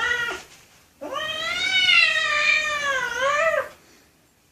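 A cat meowing. The end of one meow cuts off just after the start, then about a second in comes one long drawn-out meow lasting nearly three seconds, rising and then falling in pitch.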